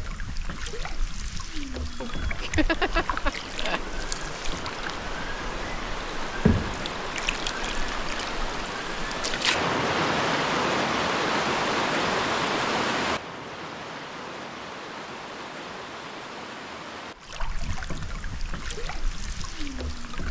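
A shallow stream rushing over rocks, a steady rush loudest for a few seconds in the middle that drops suddenly to a quieter rush. Either side of it are softer water sounds of a canoe on calm water.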